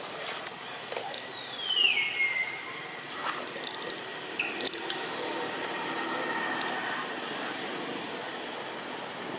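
A single high whistled animal call, gliding down in pitch and then held briefly, over a steady background hiss with a few faint clicks.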